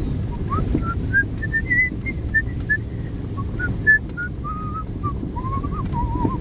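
Someone whistling a wandering tune in short notes, over the steady low rumble of a car rolling slowly along a dirt road. There is a single brief knock about four seconds in.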